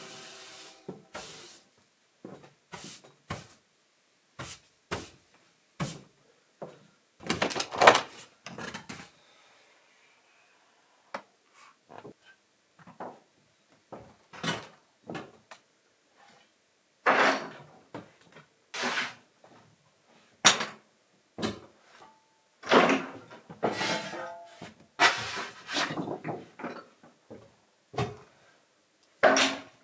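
Irregular wooden knocks and clatters, with a few short scrapes, as wooden boards are handled and set down. The knocks are spread unevenly, with a cluster around the middle and a busier stretch in the second half.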